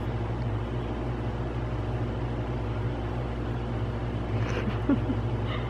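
Steady low mechanical hum with an even background hiss, holding level throughout; a few faint short pitched sounds come in near the end.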